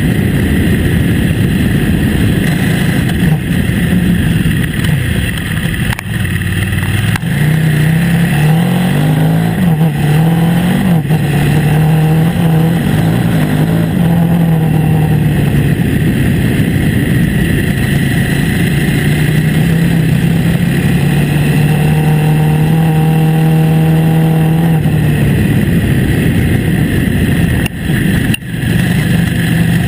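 KTM 950 Adventure S's V-twin engine running under way on a dirt track. Its note rises and falls with the throttle about eight to eleven seconds in, then holds steady, with a couple of brief dips near the end.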